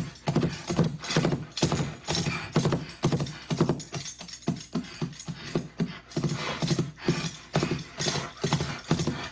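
Playback of a Foley horse track: prop horse hooves clip-clopping at a gallop-like, uneven pace, layered with a jingling bridle and horse snorts.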